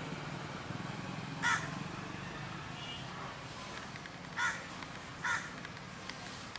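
Three short bird calls, one about a second and a half in and two close together near the end, over a low steady hum.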